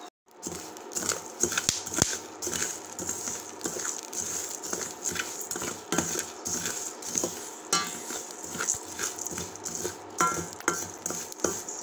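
Metal spoon stirring and scraping dry whole coriander seeds, black peppercorns and crystal salt around a stainless-steel vessel: the seeds rattle and the spoon clinks and scrapes against the pan in a run of small, irregular clicks as the spices are dry-roasted.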